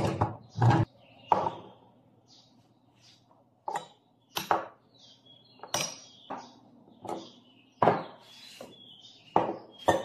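Metal espresso brewer parts and a glass jug being handled and set down on a table: a string of irregular clinks and knocks.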